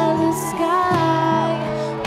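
A woman singing into a microphone over an instrumental accompaniment, holding one long note while the low accompanying notes change beneath it.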